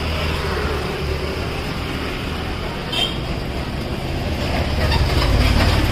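Street background noise: a steady low rumble of traffic, with one sharp click about halfway through and the rumble growing louder near the end.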